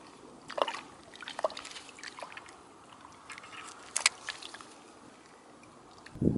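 Small waves lapping and splashing against the lake shore in irregular light splashes, the sharpest about four seconds in, with a dull thump near the end.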